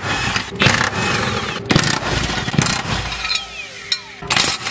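Impact wrench spinning out 19 mm bolts in several short bursts of rattling hammering, with pauses between them.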